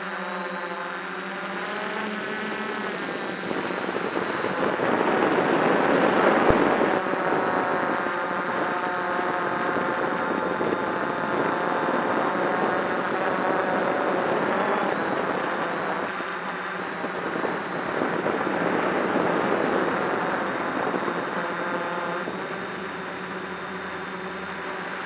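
DJI F550 hexacopter's six brushless motors and propellers buzzing in flight, heard through the camera mounted on the craft. The pitch and loudness rise and fall with throttle, loudest about six seconds in and again near twenty seconds.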